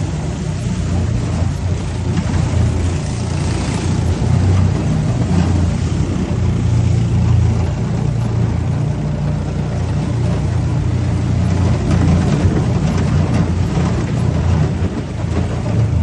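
A boat's engine running steadily: a continuous low drone that holds the same pitch throughout.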